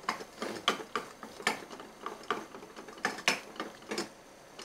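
A metal spoon stirring melting chocolate in a stainless-steel bowl over a saucepan of water (a bain-marie), giving irregular clinks against the bowl, about two to three a second. The clinking stops shortly before the end.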